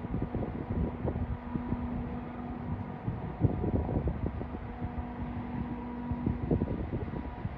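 Wind buffeting the microphone in uneven gusts, the strongest about three and a half seconds in, over a steady machine hum that drops out for stretches.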